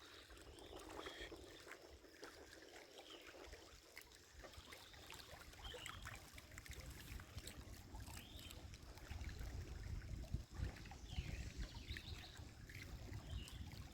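Faint lakeside ambience: a light breeze rumbling on the microphone and small waves lapping at the shore, with a few faint bird chirps. The wind rumble gets stronger about halfway through.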